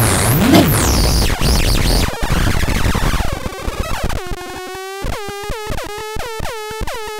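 Micro Noise Synth, a handmade pocket noise box run on button cells, playing its washy sample as the knob is twisted. It starts as a dense noisy wash with sweeping pitch glides, thins to hiss about two seconds in, and from about four seconds in breaks into a quick, repeating stutter of short tones that each dip in pitch.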